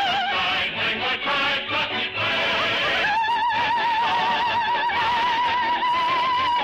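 Operatic soprano singing with orchestra. She sings short notes, then from about three seconds in holds one long high note with wide vibrato, rising slightly near the end.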